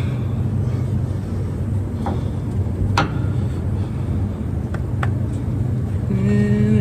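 A steady low mechanical drone with a few sharp metallic clinks, and near the end a short steady whine.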